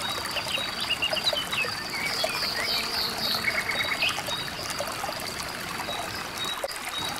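River water running over rocks with a steady hiss, and birds chirping and calling over it, including a short rapid trill about three and a half seconds in. A steady high-pitched tone sits underneath.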